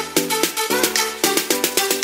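Background music with a steady beat and quick pitched notes.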